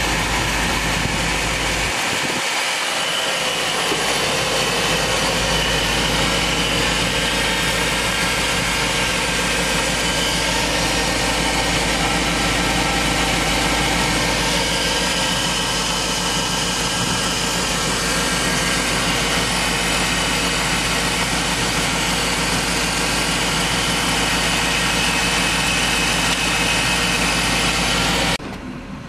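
2002 Cadillac Escalade's 6.0-litre Vortec H.O. V8 idling steadily, heard up close in the engine bay. It cuts off abruptly near the end.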